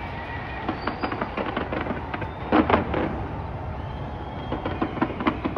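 Fireworks launched from the sides of a skyscraper, going off in a rapid, irregular string of bangs and crackles. The loudest cluster of reports comes a little past the middle.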